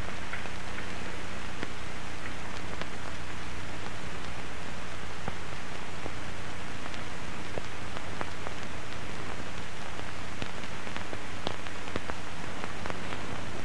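Steady hiss with scattered faint ticks over a low, steady electrical hum.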